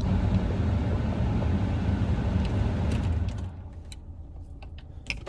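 Motor vehicle noise: a steady low rumble that drops away about three seconds in, followed by a few light clicks and knocks.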